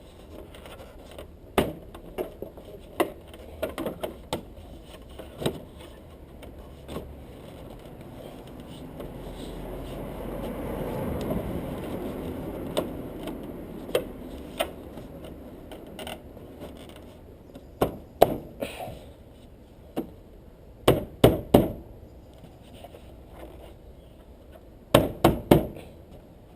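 Scattered sharp knocks and clicks of hand work on the front bumper and its trim, with two quick runs of three loud knocks in the last third. A rush of noise swells and fades in the middle.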